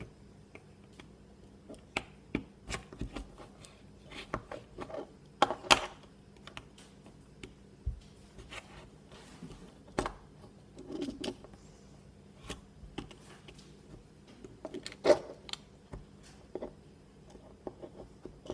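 Irregular small clicks and taps of a plastic fidget cube and its parts being handled and pried at, coming in scattered clusters with the sharpest clicks about six seconds in and again about fifteen seconds in.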